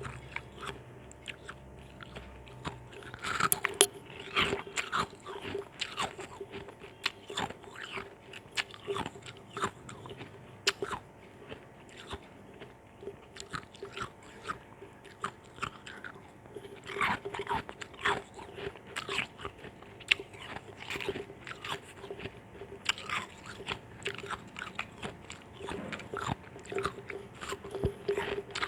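Ice chunks in orange juice being bitten and crunched at close range: repeated sharp cracks and crackles in irregular bursts of chewing.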